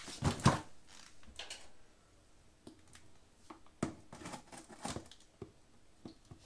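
A cardboard box set down on a tiled floor with a couple of knocks, then a small blade scraping and clicking along the box's taped end as it is slit open.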